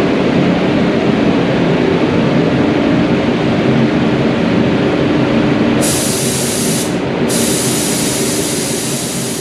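Steady rush of spray-booth airflow with a low hum while a gravity-feed spray gun lays lacquer onto a bumper. About six seconds in, a sharper high-pitched air hiss from the gun comes in, stops for a moment, then comes back.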